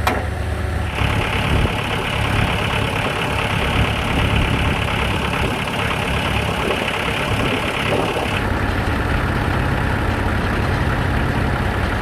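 Engine powering a hydraulic log splitter, running steadily. A higher steady hiss joins it about a second in and drops away after about eight and a half seconds.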